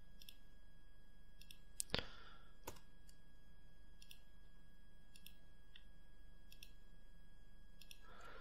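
A few faint clicks of a computer mouse and keyboard, the loudest pair about two seconds in, over a faint steady hum.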